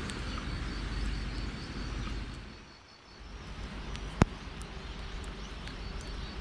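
Wind noise on the microphone that dies away about halfway through, then a single sharp click.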